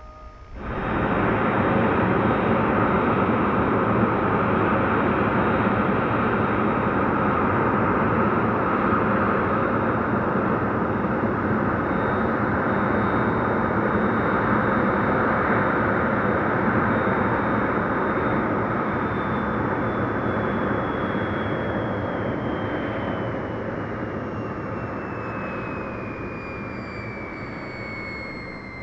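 Electric motor and propeller of a 3D-printed Savage Bobber RC plane running at high power, a loud rushing sound with a high steady whine. It starts abruptly about a second in, and over the last several seconds the whine falls steadily in pitch as the sound eases.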